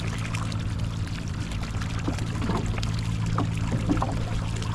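Water splashing and trickling against the side of a small fishing boat, over a steady low motor hum.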